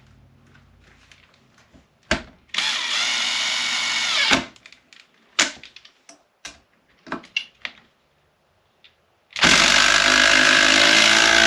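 Cordless drill driver run at full trigger in high speed twice, each burst a steady motor whine lasting about two seconds. Between the runs there are scattered clicks from the drills being handled.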